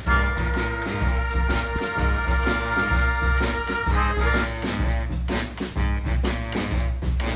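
A brass band playing a rock anthem live, with horns and a drum beat. The horns hold a long chord for about the first four seconds, then move on over a low bass line and regular drum hits.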